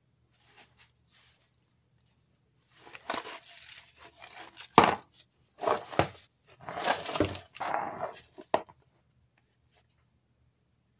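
Pringles cardboard cans handled on a wooden surface: several bursts of knocking and scuffing as a can is put down on its side, with one sharp knock about five seconds in and another near the end of the bursts.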